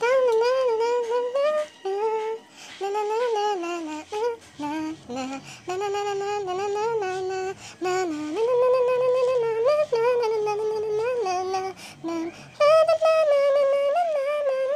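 A woman humming a song's melody without words, phrase after phrase with short breaks, as a tune for the other player to guess.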